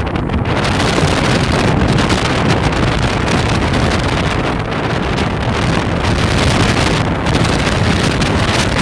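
Wind buffeting a Samsung Galaxy S5's microphone: loud, steady noise that swells into a stronger gust about half a second in.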